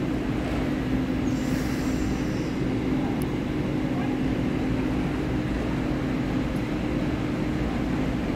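Taiwan Railway EMU3000 electric train standing at the platform. Its onboard equipment gives a steady hum with a low held tone, and a faint hiss comes about a second and a half in.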